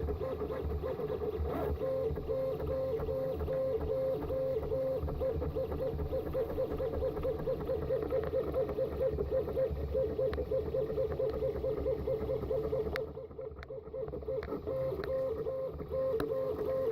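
CTC 3D printer running a print: its stepper motors give a steady, warbling whine as the print head moves. It drops quieter for a couple of seconds near the end, then picks back up.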